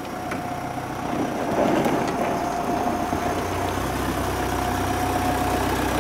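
A tractor's diesel engine idling steadily with a steady whine over it, getting a little louder about a second in.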